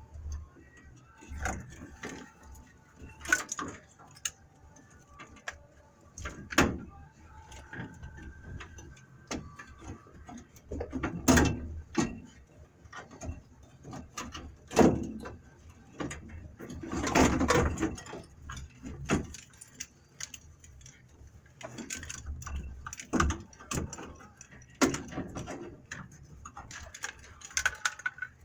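Irregular clunks, knocks and rustling of a wiring harness being handled and fed in under a truck's dashboard, with a few louder knocks about 11 and 17 seconds in.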